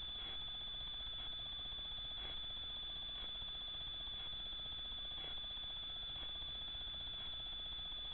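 Steady high electronic whine with a faint tick about once a second, the own noise of a Dörr BolyGuard trail camera's recorder.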